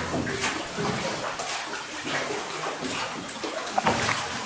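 Water splashing and trickling in a flooded cave, a continuous wet wash with small irregular splashes around rowboats on the cave stream.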